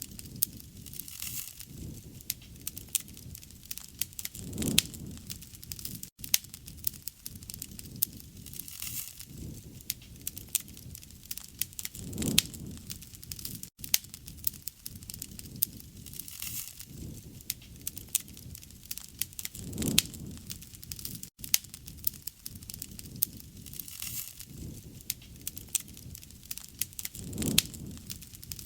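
Wood fire burning: dense crackling and popping of the burning wood, with a low rushing swell of flame that comes back about every seven and a half seconds.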